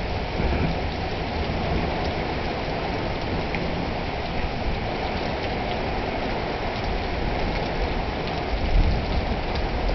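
Heavy rain pouring steadily during a thunderstorm, with a brief low rumble near the end.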